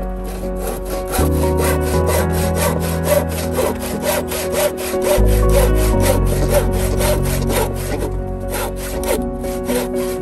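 Hand saw cutting through a softwood timber batten in quick, even back-and-forth strokes, with a couple of short pauses near the end. Background music runs underneath.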